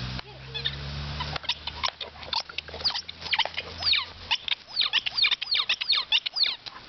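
Pink rubber squeaking ball squeaked over and over in an Airedale Terrier's jaws as he chews it: rapid, high squeaks sliding up and down in pitch, several a second, starting about a second and a half in.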